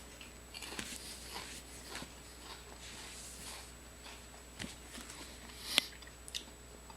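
Faint chewing and mouth sounds from a person eating, with scattered small clicks and one sharper click near six seconds.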